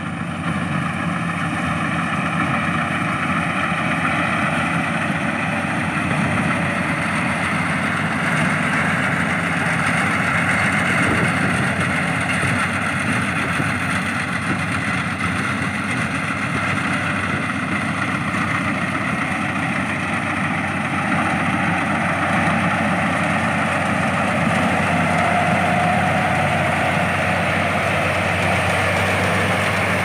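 Crawler rice combine harvester's engine running steadily under load while the machine cuts and threshes rice, growing louder over the first several seconds as it comes close.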